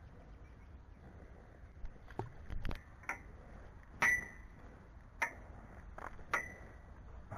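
A handful of sharp metallic clicks, about six, irregular and roughly a second apart, each with a brief high ring.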